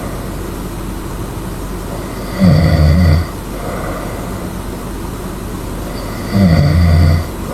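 A person snoring loudly, twice, about four seconds apart. Each snore is low-pitched and lasts under a second, over a steady background hiss.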